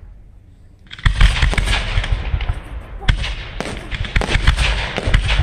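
Fireworks display: after a quieter first second, a rapid run of aerial shell bursts sets in, sharp bangs with continuous crackling between them and several louder reports.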